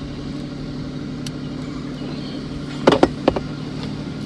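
Car running with a steady low hum, broken about three seconds in by a quick cluster of three sharp clicks or knocks.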